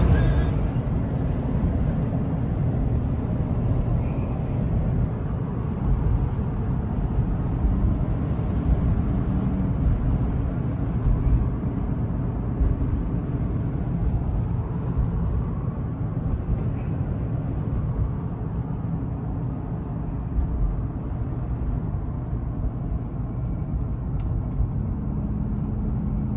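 Vehicle driving on the road: a steady low rumble of engine and tyre noise.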